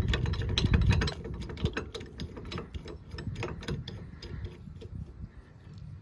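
Bolt of a steel anti-rattle hitch clamp being screwed in by hand against the tow hitch receiver: a run of small metallic clicks and ticks, louder with some handling rumble in the first second, then fainter.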